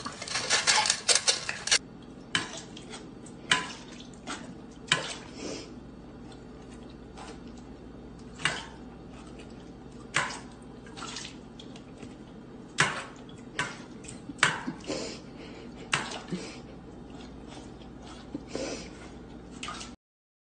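A dog's muzzle knocking and pushing a stainless-steel dog bowl as it eats, the metal clinking and clattering in separate sharp knocks about every second or two. A denser burst of clatter comes in the first two seconds.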